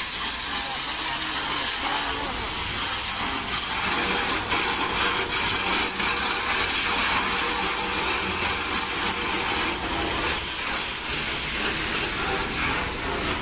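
Pressure washer's high-pressure water jet hitting a metal truck tank, a loud, steady hiss of spray.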